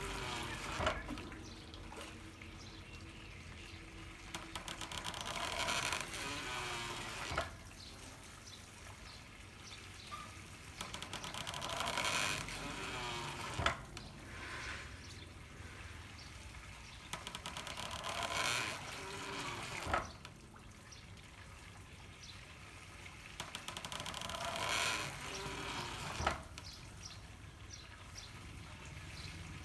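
Handmade water-powered corn mill working in a steady cycle. Water runs through bamboo pipes, and about every six seconds a surge of pouring water is followed by a single sharp knock, the beat of the mill.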